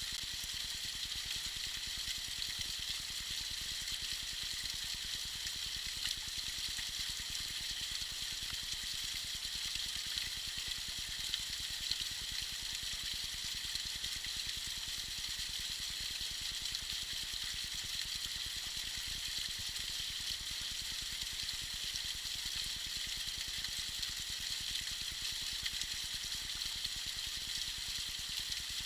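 Tiny icy waterfall: water trickling and splashing in a steady, high-pitched hiss with little low rumble.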